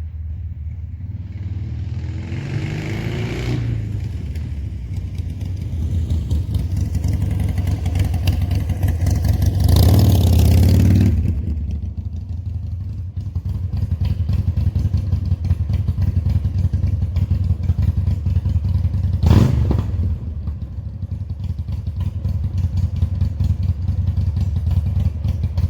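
Harley-Davidson Sportster's V-twin running through Harddrive Radium slip-on mufflers with a steady deep rumble. It revs up briefly a couple of seconds in, swells louder for about two seconds around ten seconds in, and gives one short sharp blip near twenty seconds.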